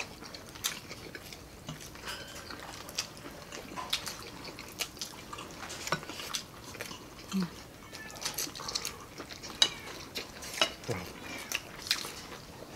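People eating at a table: chewing and lip-smacking, with spoons clinking against bowls and plates as scattered sharp clicks.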